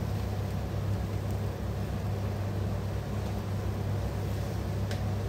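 Steady low mechanical hum with a faint even hiss over it, and one faint click near the end.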